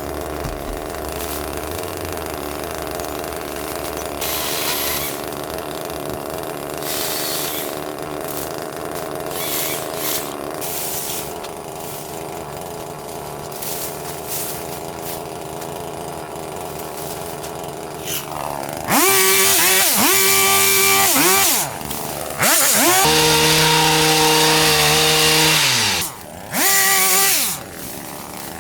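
A small petrol engine on a handheld hedge-cutting power tool runs steadily at low speed, then about two-thirds through is revved hard in several bursts of one to three seconds, the pitch sweeping up and falling back each time.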